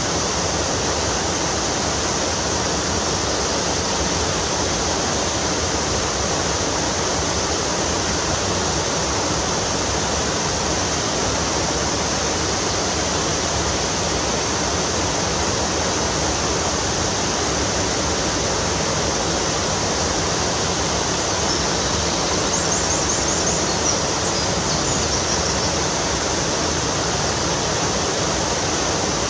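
Steady rushing of a fast mountain stream tumbling over small waterfalls.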